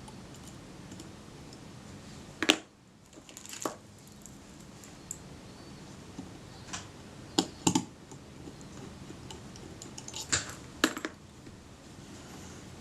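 Small tools clicking and tapping against a Kodak Retina IIIS camera body while a tiny screw is placed and started: a handful of sharp, irregularly spaced ticks. The loudest comes about two and a half seconds in.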